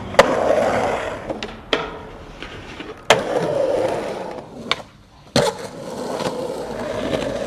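Skateboard wheels rolling on concrete, broken by about five sharp clacks of the board hitting the ground.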